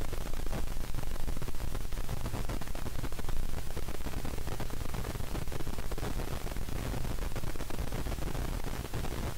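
Steady rumble and hiss of an airliner's turbofan engines and cabin air, heard from inside the passenger cabin as the plane taxis.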